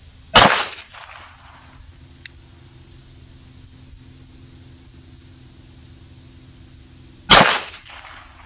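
Two single pistol shots from a CZ 83 in .380 ACP, about seven seconds apart, each followed by a short echo: slow, deliberate aimed fire. A faint tick comes about two seconds after the first shot.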